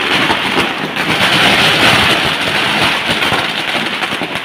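A long string of firecrackers going off in a dense, rapid crackle that runs together into a loud continuous rattle, dying away right at the end.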